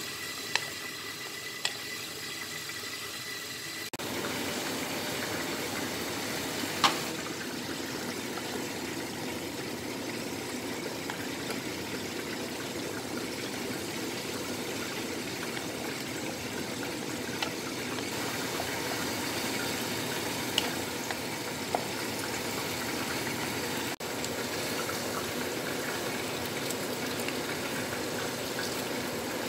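Chopped onions frying in hot oil in a pot, then a tomato-and-onion mixture sizzling and bubbling, louder from about four seconds in. A few sharp clicks of a wooden spatula against the pot.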